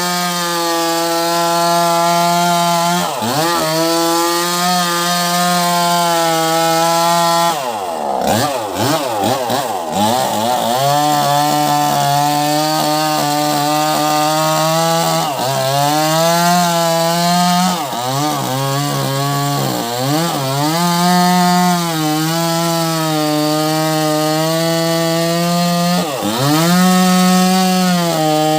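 Wagner WG580 chainsaw running at high revs, sawing through wood. Its pitch drops sharply several times, as it loads in the cut or the throttle eases, and climbs straight back up, with a rougher, unsteady stretch about eight seconds in.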